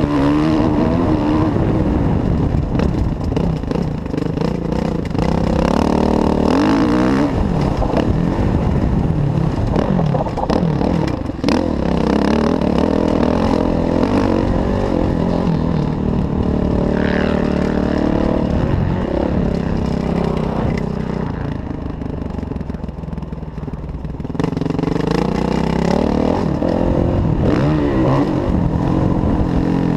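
Kawasaki KX450F's single-cylinder four-stroke engine under load on a motocross ride, its pitch repeatedly climbing and dropping as the rider works the throttle through the gears. About two-thirds of the way through it eases off for a few seconds, then picks up again.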